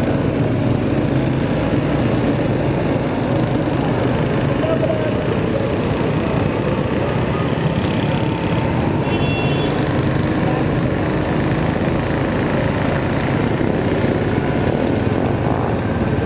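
Motorcycle riding along a road: a steady, loud mix of engine and road noise.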